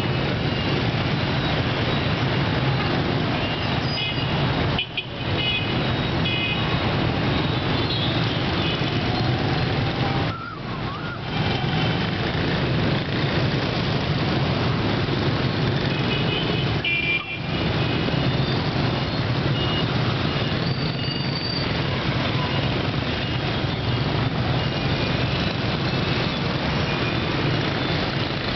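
Dense city street traffic, mostly the engines of many motorbikes and scooters running and passing, with buses and small trucks among them. Horns beep now and then. The noise dips briefly three times.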